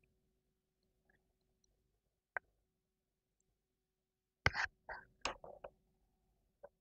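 Board game cards and cardboard tokens handled on a table. There is a single sharp click about two seconds in, then a quick cluster of taps and clicks around the middle of the second half, and one faint click near the end.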